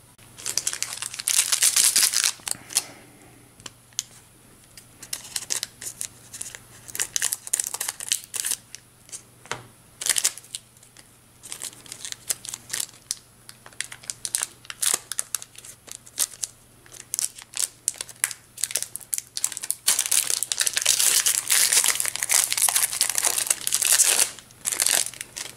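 Foil trading-card booster-pack wrapper crinkling as it is handled and torn open. The crinkling is dense about a second in and again through the last five seconds or so, with sparse light clicks and rustles in between.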